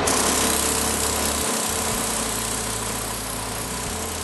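Drill press running with a drum sander in the chuck, the sanding drum grinding against the edge of a steel block held by hand. A steady motor hum under a loud abrasive hiss that starts abruptly as the metal meets the drum.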